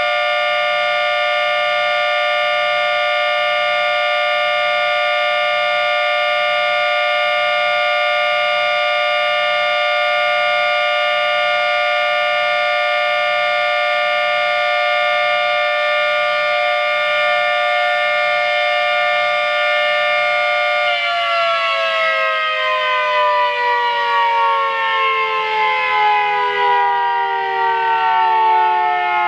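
One-third-scale model Thunderbolt 3T22 siren sounding a steady alert: a held two-tone chord, loud and unwavering, that begins winding down about 21 seconds in, its pitch falling steadily as the rotor slows.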